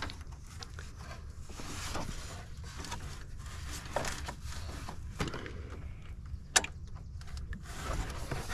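Scattered light clicks and knocks of hand tools and parts being handled under a car's hood, with one sharp metallic click about six and a half seconds in.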